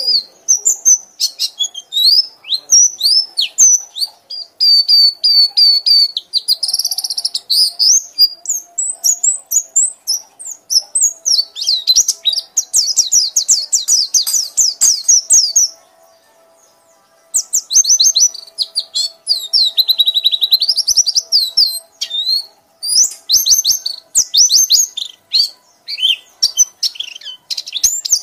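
Songbird song in fast, high-pitched runs of chirps, trills and sweeping whistles, stopping for about a second and a half just past the middle.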